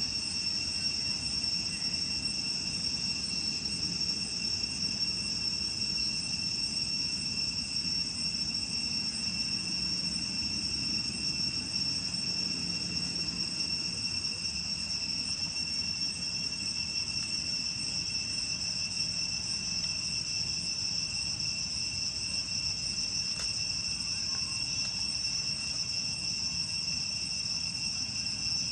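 Steady outdoor insect chorus: a continuous, high-pitched shrill drone that holds two steady pitches without a break.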